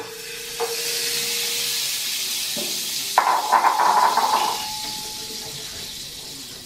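A pat of butter sizzling as it melts in a hot non-stick frying pan on a gas burner, a steady hiss that slowly dies down. A brief louder sound comes about three seconds in.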